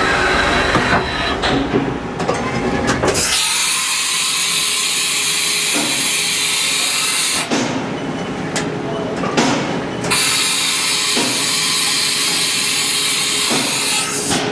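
2000 Haas Minimill CNC vertical machining center running its program with the belt-driven spindle turning. A steady high hiss sets in about three seconds in, gives way to fuller machine noise for a few seconds, then returns.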